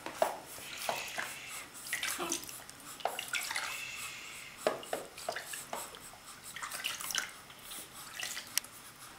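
Bathwater in a shallow sink splashing and trickling as a hand scoops it over a baby, in small irregular splashes and drips.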